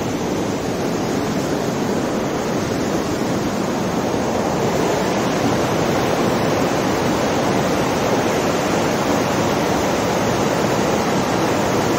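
Mountain river rushing over boulders in white-water rapids, a steady, even rush of water.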